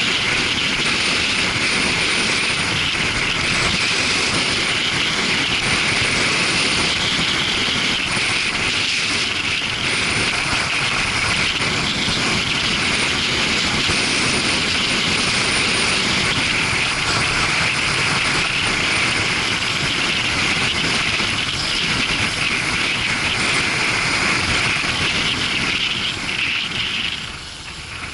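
Steady wind rush on an action camera riding on a motorcycle at speed, with the engine running underneath. The rush drops off near the end.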